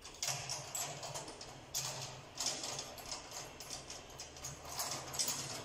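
Fingertip taps on the head of a large PDP drum during tuning, a quick, irregular run of short knocks, each with a low drum tone under it, as the head is checked near the tension rods.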